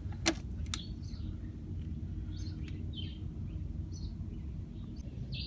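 Two sharp clicks in the first second, then a few short, high bird chirps spaced about a second apart over a steady low background rumble.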